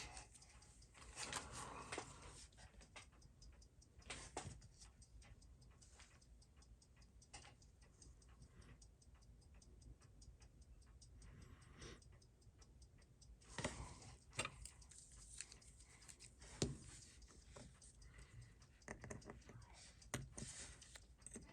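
Faint, fast, even ticking of a mechanical watch movement, the Seiko 6139 automatic chronograph's balance beating, with a few sharper knocks of metal tools on the watch or bench.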